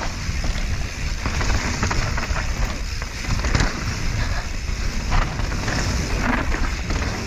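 Mountain bike riding down a dirt singletrack: wind rushing over the action camera's microphone, tyres rolling on dirt, and the bike rattling over bumps with irregular knocks.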